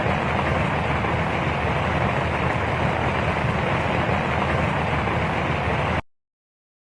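Steady rain falling, an even hiss with no separate drips standing out, which cuts off abruptly about six seconds in to dead silence.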